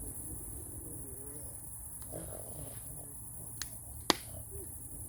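Crickets chirring steadily and high, with faint distant voices. Two sharp clicks about half a second apart come near the end, the second louder.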